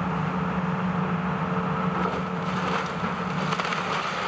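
Hydraulic demolition excavator's diesel engine running steadily as its grapple pulls down a brick building. From about two seconds in, debris cracks and crunches as it falls.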